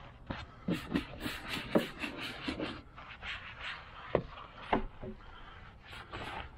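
Soft-bristle brush scrubbing cleaner-soaked dirt on engine-bay parts in short, irregular strokes, with a few sharp knocks where the brush hits the parts.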